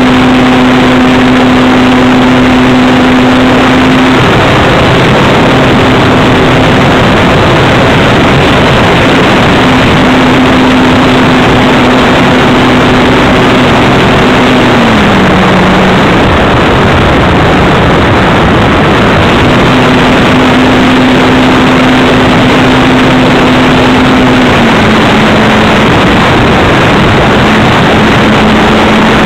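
Loud wind rush over an onboard camera on a radio-controlled model plane, with the plane's motor and propeller humming steadily underneath. The hum sometimes fades into the wind and drops in pitch twice, once about halfway and again near the end.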